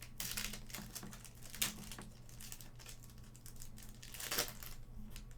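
Trading card pack wrapper crinkling and rustling as the pack is opened and the cards handled, with scattered small clicks.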